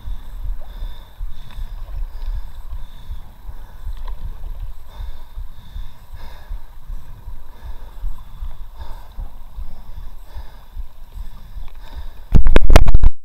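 Low, unsteady rumble of wind and water on the microphone of a camera drifting in an inflatable kayak. Near the end comes a very loud, distorted burst of knocking and rubbing, about a second long, as something presses against the camera.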